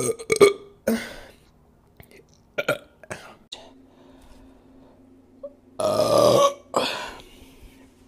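A woman burping several times: loud burps right at the start, a few short ones around the middle, and a long burp about six seconds in.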